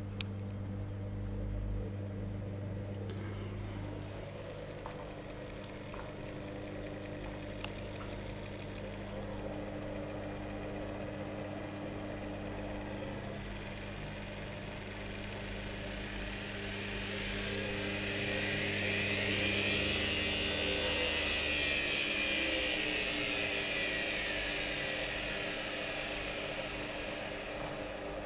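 Old washing machine's brushed universal motor running. About halfway through its high whine rises in pitch and grows louder as it speeds up, then falls again as it slows, over a steady low hum.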